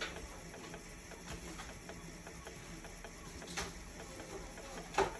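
Scattered light clicks and ticks of small metal parts being handled, the loudest just before the end, over a faint steady low hum.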